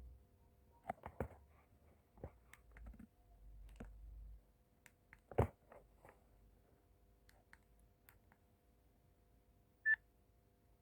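Scattered clicks of a Nokia 6070 mobile phone's keys being pressed and the phone being handled, with one short high beep near the end.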